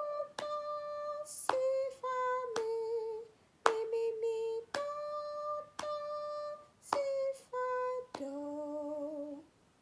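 A woman singing an improvised melody in 6/8 unaccompanied, a string of short held notes stepping up and down, ending on a long, lower final note about nine and a half seconds in.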